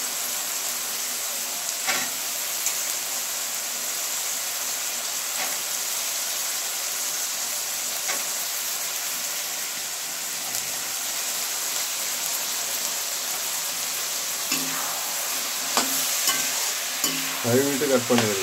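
Cut turkey berries frying with tomatoes and onions in hot oil: steady sizzling, with a spoon stirring and clacking against the pan a few times.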